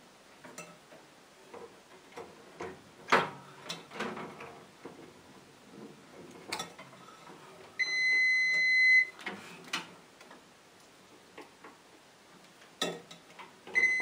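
Multimeter continuity beep, a steady high tone lasting about a second, sounding about eight seconds in and again at the very end, between clicks and knocks of the probes being handled. The beep shows continuity: the fuse tests good.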